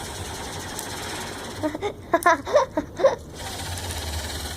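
Fidget spinner whirring steadily close to the microphone, the sound starting and stopping abruptly. A brief voice cuts in midway.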